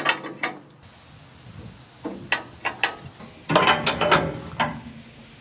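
Steel loader latch pin on a John Deere 955 front-end loader being pushed in, lifted and pulled out of its pocket: a few sharp metal clicks at the start, more a couple of seconds in, then a busier run of clanks and rattles past the middle.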